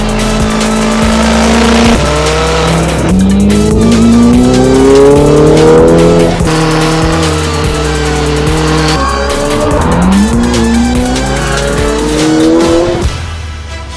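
Ferrari F8 Tributo's twin-turbo V8 with an iPE aftermarket exhaust, accelerating through the gears. The pitch climbs, drops at each upshift and climbs again, with steadier stretches in between, and fades near the end. Music plays underneath.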